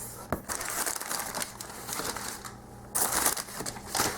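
Crinkling and rustling of packaging as items are handled and pulled out of a shipping box, with a louder burst of crinkling about three seconds in.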